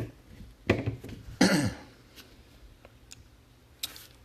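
A man clearing his throat: a few short harsh sounds in the first two seconds, the last one sliding down in pitch. Later come a few faint clicks.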